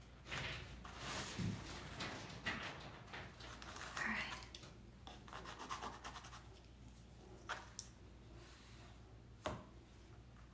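Pencil scratching in short strokes on stretched canvas along a metal ruler, with a few sharp taps as the ruler is shifted, the sharpest near the end.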